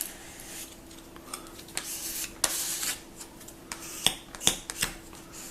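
Plastic squeegee scraping across a plastic screen protector on an iPad, pushing air bubbles out: a few rubbing swipes, then several sharp clicks about four seconds in.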